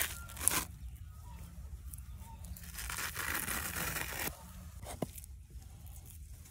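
Large knife slicing through raw singhara fish flesh and scraping along the bones on a wooden chopping block, a wet tearing rasp in two spells, the longer one in the middle, followed by a single sharp tap.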